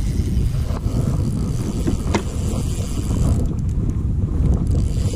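Wind buffeting the camera microphone: a steady low rumble, with a few faint clicks or knocks from handling.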